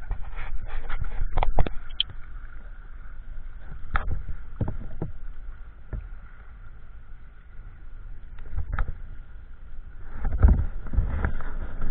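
Muffled water movement with scattered knocks and thumps, growing busier and louder near the end.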